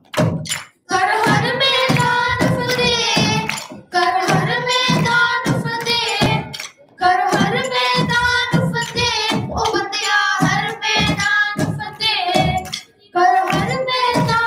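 A Hindi song sung with long held, wavering notes in phrases a few seconds long, separated by short breaks, over steady percussion beats.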